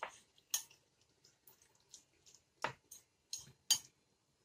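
Fried potato pieces in curd and green chutney being mixed in a bowl: irregular wet squelches and sharp clicks.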